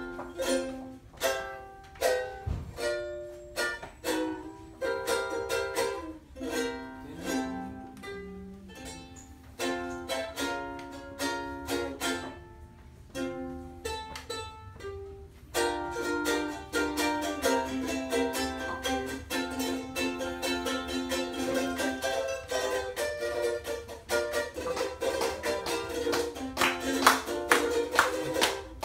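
Solo ukulele playing a Hawaiian tune: single plucked melody notes with short pauses at first, then from about halfway a denser, unbroken run of strummed chords.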